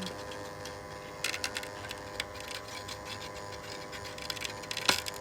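Steady hiss of a hot-air rework station blowing on a circuit board, with scattered small clicks and scrapes as the heated IC is worked loose, and one sharper click near the end.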